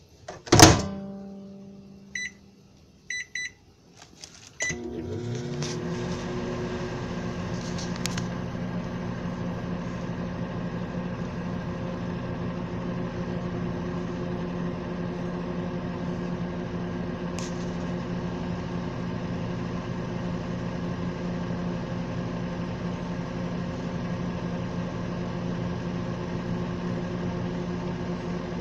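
Microwave oven: a loud clunk, then a few short keypad beeps, then the oven starts and runs with a steady hum.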